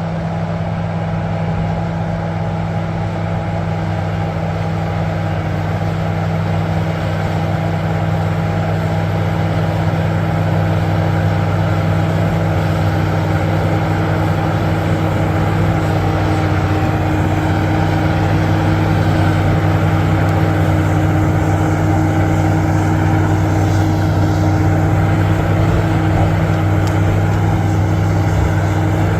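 Heavy diesel engine of a bulldozer running at steady revs, gradually growing louder.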